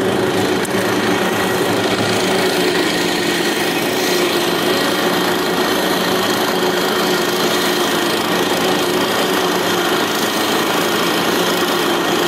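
Small engine of a tracked amphibious motorized tow (motobuksirovshchik) running steadily at a constant speed, with a buzzing, rattling drone that does not change pitch.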